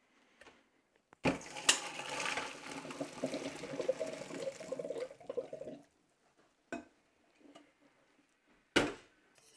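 Pot of boiling pasta water and spaghetti being poured out into a stainless-steel colander in a stainless-steel sink: a metal clank about a second in, then about four and a half seconds of rushing, splashing water that stops suddenly. Two short metal knocks follow near the end.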